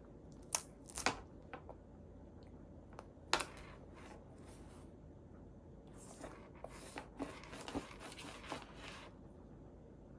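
A few sharp clicks and knocks in the first few seconds, then about three seconds of crinkling and rustling from a rice puff snack wrapper being handled.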